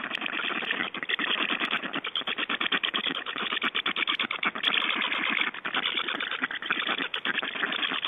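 Black stork nestlings making a loud, rapid rasping rattle, many pulses a second, with a couple of brief breaks.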